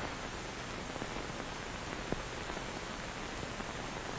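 Steady hiss and static of an old film soundtrack between lines of narration, with one faint click about two seconds in.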